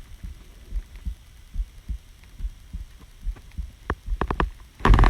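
A human heartbeat recorded close against the chest: soft, low thumps in close pairs at a steady, regular rhythm. Near the end a few sharp scratchy clicks, then a loud rustle, as the microphone is moved and handled.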